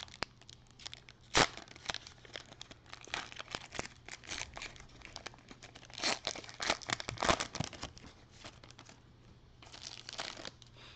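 Foil Panini Prizm trading-card pack being torn open and crinkled in gloved hands, the cards slid out of the wrapper: irregular crackles and rustles, loudest about a second and a half in and again around six to seven seconds, with a last flurry near the end.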